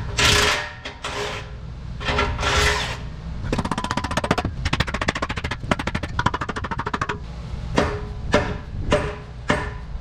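Background music with percussion: two swells in the first few seconds, a fast run of clicks in the middle, then a steady beat of sharp hits about twice a second.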